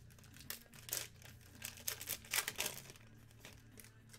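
Foil trading-card pack wrapper being crinkled and torn open by hand: a run of sharp crackles for about three seconds, then fewer.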